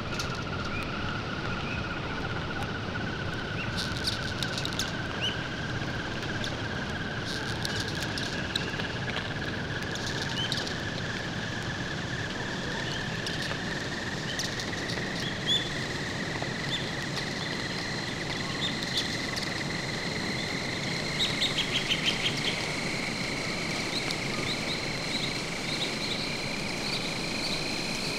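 A steady hiss, with a thin tone that slowly rises in pitch and a second, higher steady tone that comes in about halfway. Scattered high chirps and clicks sound over it, including a quick even run of about six chirps some three-quarters of the way in.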